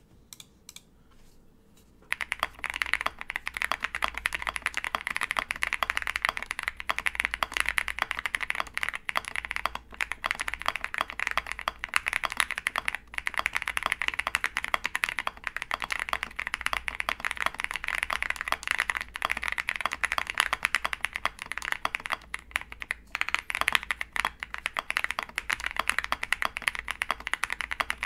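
Fast, continuous typing on an OwLabs Jelly Epoch mechanical keyboard fitted with lubed Holy Boba switches, a polycarbonate plate, full foam and MT3 PBT keycaps: a dense clatter of keystrokes that starts about two seconds in.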